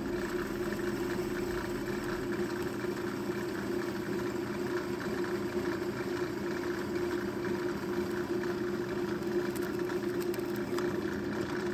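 Drill press motor running steadily while an old hand-brace auger bit bores into a block of wood, a constant hum with the cutting noise of the bit.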